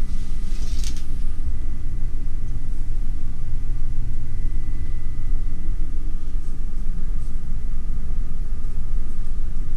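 Steady low rumble of a cruise ship's machinery, with a faint steady whine above it. About a second in there is a short rustle as the shower curtain is brushed aside.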